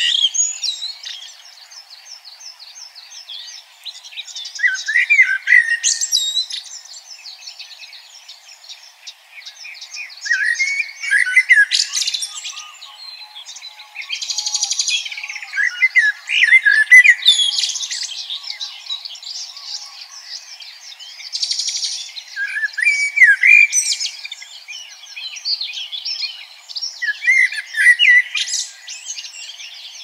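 Songbirds singing: bursts of fast, warbling, chirping song phrases every few seconds, several of them overlapping.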